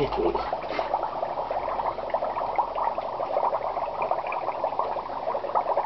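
Dry ice bubbling under soapy dishwater in a stainless steel sink: carbon dioxide gas streams up and a dome of suds fizzes and crackles with countless tiny popping bubbles, steady throughout.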